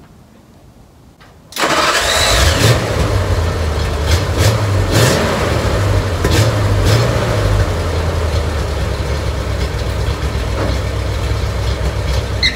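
Freshly rebuilt Ford flathead V8 in a 1939 Ford cabover truck starting: it catches abruptly about a second and a half in and then runs steadily with a deep, low rumble.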